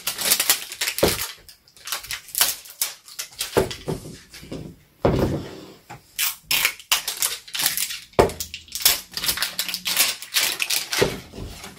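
Crackling and rustling of wrapping being peeled in strips off a toy ball, in irregular handfuls of crackles.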